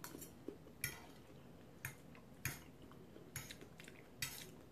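Faint clinks and scrapes of a metal fork against a dinner plate: a handful of short, separate clicks while eating.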